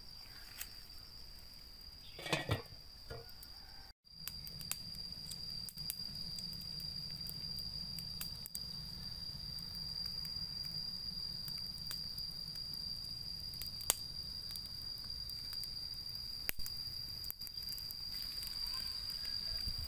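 Crickets trilling steadily on one high pitch, with scattered sharp crackles. A low rumble sets in about four seconds in.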